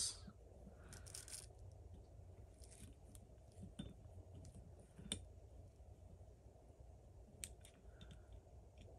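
Near silence with a few faint, scattered metallic clicks of small optic-mounting screws and a small hex key being worked on a pistol slide, the screws being started by hand.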